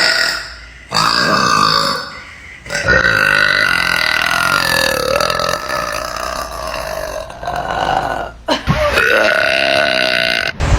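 A girl belching loudly: a short burp about a second in, then a long, drawn-out belch of about five seconds that wavers in pitch, and another burp near the end.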